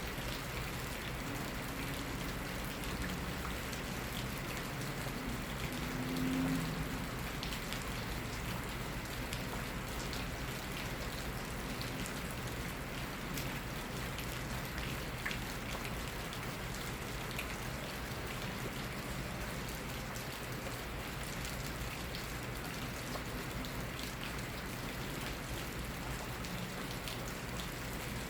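Steady spring rain falling at night, with a constant hiss and scattered individual drops ticking on surfaces. A brief low hum rises above the rain about six seconds in.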